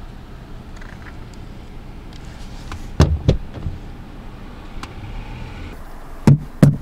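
Rubber toilet plungers suctioned onto a car window and pulled off, giving short loud pops: two close together about three seconds in and two more near the end. A car engine hums underneath.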